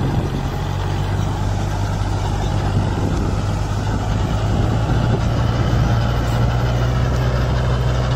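Kubota MU4501 4WD tractor's four-cylinder diesel engine running steadily under load as it drives an 8-foot rotavator through the soil while also towing a disc harrow.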